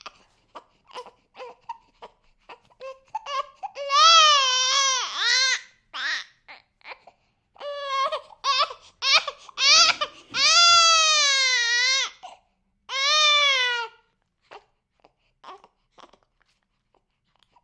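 A six-week-old baby crying: short fussy whimpers break into loud, wavering wails, the longest about ten seconds in, then settle back into small fussing sounds near the end.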